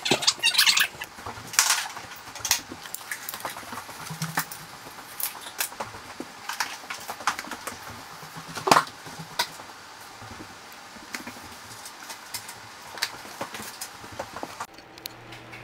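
Irregular clicks, taps and light scraping from handling work at a stone countertop. They come thick and fast at first, thin out, and stop shortly before the end.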